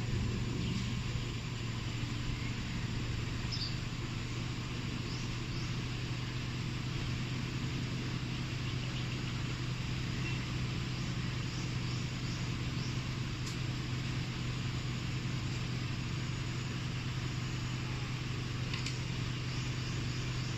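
A vehicle engine idling steadily with an even low hum, while small birds chirp faintly now and then.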